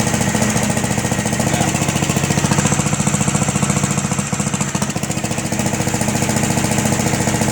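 The roller's gasoline engine running steadily with a fast, even beat, driving the hydraulic pump while the drive motor turns at its slowest flow-control setting.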